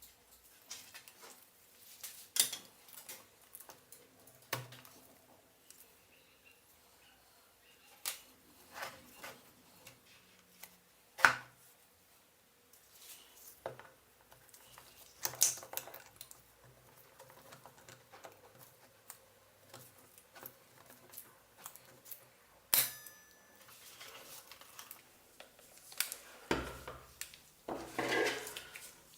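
Blender parts being handled and worked on by hand: scattered clicks, clinks and knocks of hard parts. The sharpest knocks come about eleven and twenty-three seconds in, and there is a longer scraping rub near the end.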